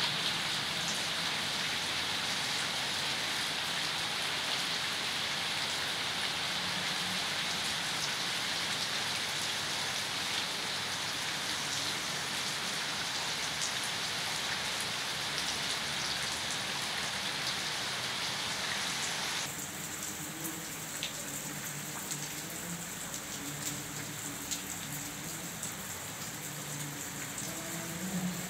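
Steady hiss of rain. About two-thirds of the way through, its character changes suddenly and becomes higher and thinner.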